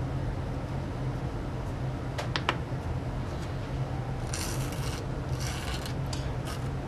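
Small wooden stick with tape on its tip scraping glow-in-the-dark powder across a maple board: several short scratchy strokes about a second apart, starting about four seconds in. There are a few light clicks about two seconds in and a steady low hum underneath.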